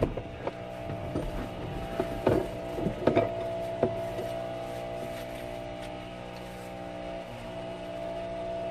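A van's engine idling with a steady hum, while a few knocks and rustles in the first four seconds come from the driver's door opening and a man climbing out in waterproof trousers.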